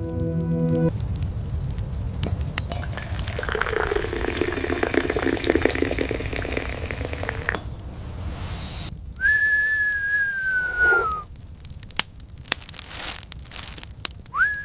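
A crackling, sizzling noise for several seconds, then one clear high whistle that slowly falls in pitch for about two seconds; a second whistle starts near the end.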